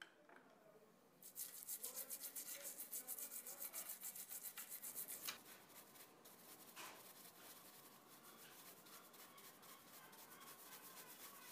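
A bristle brush scrubbing an ornate brass stand in quick back-and-forth strokes, about six a second, for a few seconds, then softer, steadier brushing.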